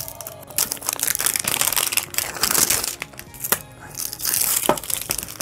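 Plastic shrink-wrap on a large toy egg being pierced with a fork and torn away along its perforation, crinkling and crackling.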